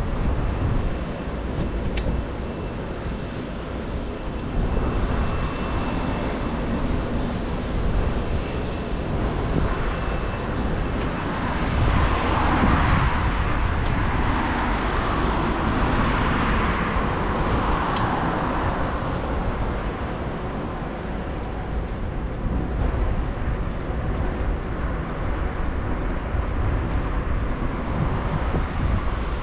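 Street noise heard from a moving bicycle in city traffic: a steady low rumble of wind on the microphone with traffic around. A passing vehicle swells up and fades away in the middle.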